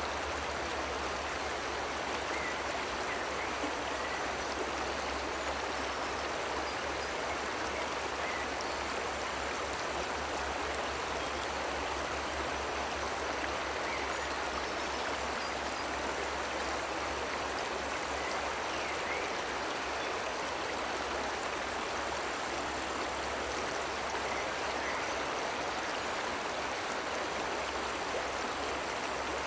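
Waterfall: water rushing in a steady, even wash with no breaks.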